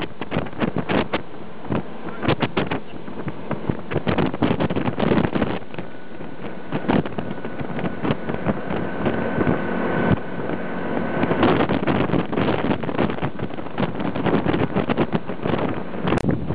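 Wind buffeting the microphone in gusts, held out of a moving Romney, Hythe & Dymchurch Railway train, with the train's running noise underneath. A thin steady tone holds from about six seconds in to just past eleven.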